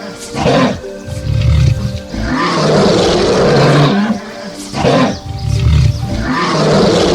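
A big cat roaring, one roar about every three and a half seconds, over background music.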